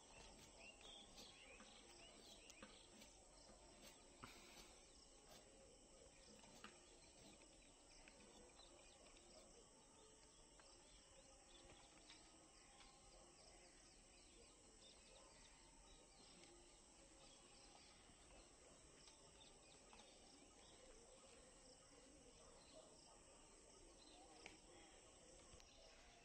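Near silence: faint outdoor ambience of small birds chirping and insects, with a few faint ticks.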